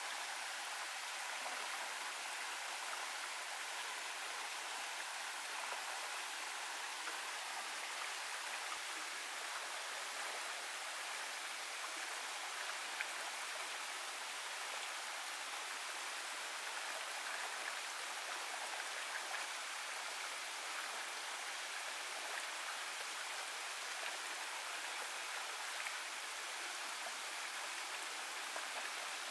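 Small rocky stream running over boulders and through little cascades: a steady, even rush of water.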